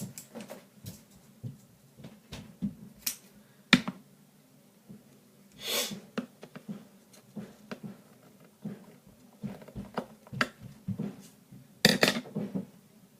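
Scattered light clicks and taps of small plastic toothbrush pieces and tools being handled at close range, with a sharper click a little under four seconds in and another about twelve seconds in, and a short hiss about six seconds in.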